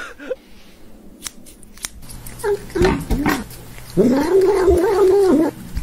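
A long-haired cat making growling meows as it eats a treat from a tube, "hangry": a few short calls, then one long drawn-out growling call near the end that stops abruptly.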